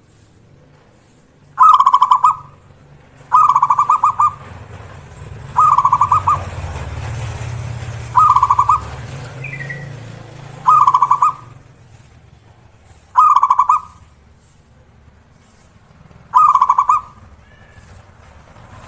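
Zebra dove cooing: seven short, loud trilled coos about two to three seconds apart. A low rumble and hiss sits behind the middle calls.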